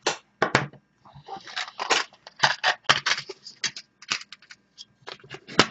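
Small screwdriver scraping and clicking in the sensitivity trimmer potentiometer of a GP2Y1010AU0F dust sensor module as it is turned to adjust the sensor's sensitivity: a quick, irregular run of short clicks and scratches, about three or four a second.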